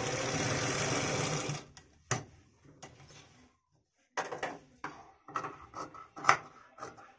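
Bharat sewing machine stitching steadily, stopping within the first two seconds. A single click follows, then a run of sharp scissor snips as the fabric edge is trimmed.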